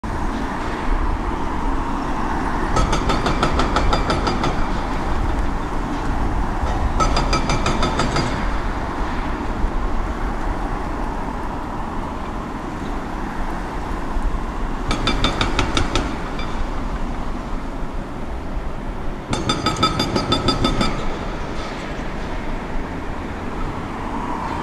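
Hyundai 225 crawler excavator's diesel engine running steadily under work, with four short bursts of high, grating metallic squeal, each lasting a second or so.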